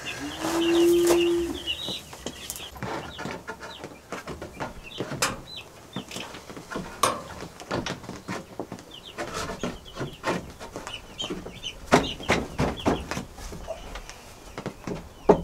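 Chickens calling, with one long held call at the start and short high calls scattered through, over repeated knocks and clatter of old wooden boards as a board is pulled out of a wooden dresser.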